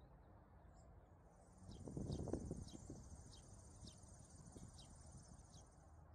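Faint steady high-pitched insect trill, cricket-like, with a young house sparrow's short begging chirps repeated about twice a second. A brief low rumble comes about two seconds in.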